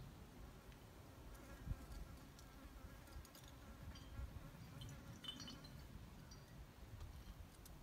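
Near silence with a faint low rumble, a flying insect buzzing faintly past for a second or two, and a few faint light clicks.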